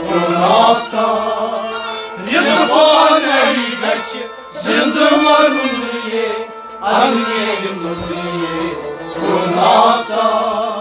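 Male voice singing a Kashmiri Sufi kalam in long, drawn-out phrases, accompanied by a hand-played clay pot drum and a stringed instrument.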